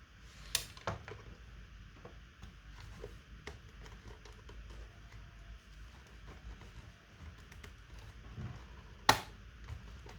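Scattered small clicks and taps of hard plastic and metal parts being handled, with one sharp, louder click about nine seconds in.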